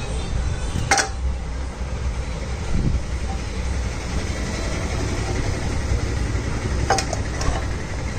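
A steady low rumble, with two sharp clicks, about a second in and near the end, as the scooter's aluminium engine side cover and an oil can are handled and the kick-start mechanism is oiled.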